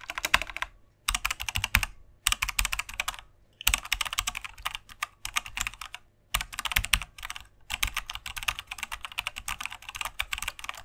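Fast computer-keyboard typing: runs of rapid key clicks, each broken off by a short pause, several times over.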